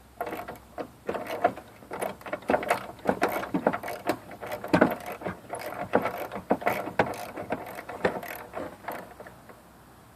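Ratchet wrench clicking in quick runs as a 12 mm hood-latch bolt is loosened and backed out; the clicking stops shortly before the end.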